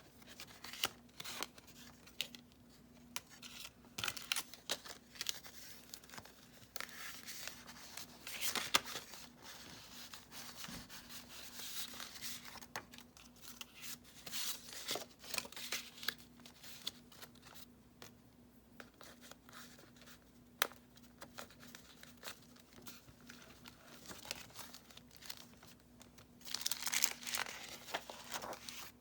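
Paper pages of a handmade junk journal (book pages, coffee-dyed and assorted papers bound on binder rings) being turned and handled: irregular rustling and crinkling with sharp little ticks, and a louder flurry near the end. A faint steady hum sits underneath.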